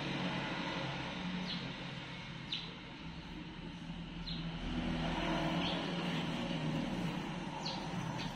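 A steady low engine hum, with short high chirps every second or two.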